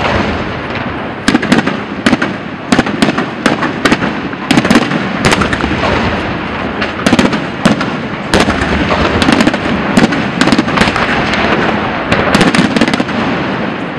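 Aerial fireworks display: many sharp bangs from bursting shells at uneven intervals, sometimes several a second, over a continuous crackling din.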